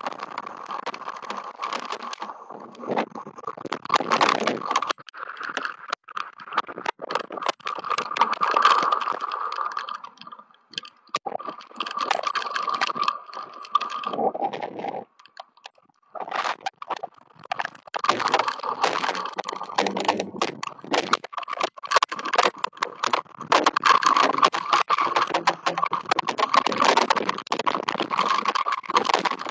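Hail pelting down, a dense, rapid, irregular clatter of small hard hits close to the microphone, thinning briefly twice, about ten and fifteen seconds in.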